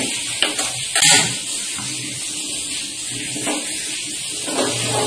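Steady hiss of water as pine needles are washed and boiled, with a few light knocks and clatters of handling, the loudest about a second in.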